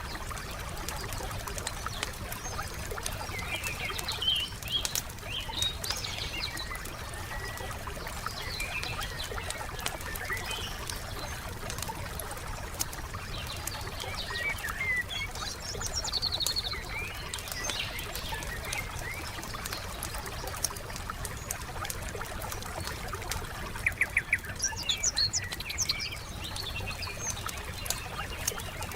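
Wood fire crackling with scattered small pops, while songbirds chirp and sing in several bursts, including a quick run of repeated notes near the end.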